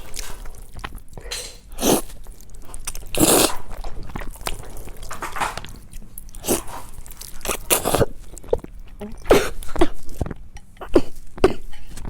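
A person eating close to the microphone: irregular bites, crunches and chewing sounds.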